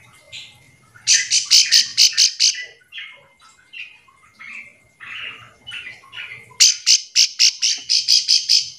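Ciblek sawah, a prinia, calling: two bouts of rapid, sharp repeated notes, about six a second, the first a second in and the second near the end, with softer scattered chirps between them.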